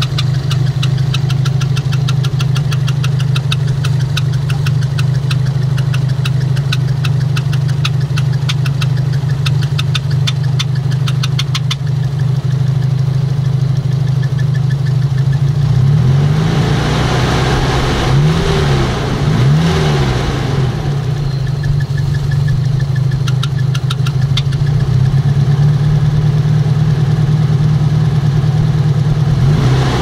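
Nissan SR20DET turbocharged four-cylinder engine idling, with a fast, even ticking for the first twelve seconds or so. From about sixteen seconds the revs rise and fall three times in quick succession, then it settles back to a steady idle.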